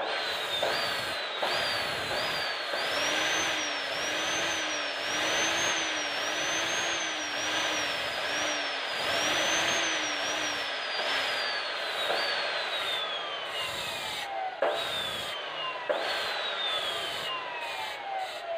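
Bosch cut-off saw running with a steel rod ground against its abrasive wheel to sharpen a point: a grinding hiss over the motor's whine, which dips each time the rod is pressed in and picks back up. After about twelve seconds the trigger is let go and the saw is given two short bursts, the whine falling as the wheel runs down after each.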